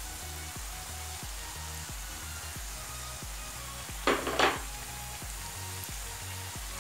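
Diamond-cut maida dough pieces deep-frying in hot oil in a kadai, a steady sizzle. About four seconds in there are two short, louder bursts of noise.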